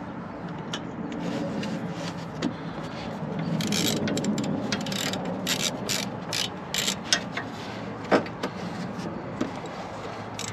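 Socket ratchet clicking in short irregular runs as the bolt of a front Sumo Spring is screwed in, over a steady low hum.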